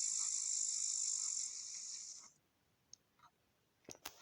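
A steady chorus of field insects (crickets or grasshoppers) chirping, which stops about two seconds in; a few short clicks follow near the end.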